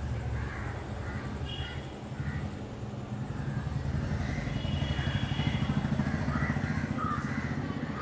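A motor vehicle engine running, a low pulsing rumble that grows louder about halfway through, with faint short bird calls above it.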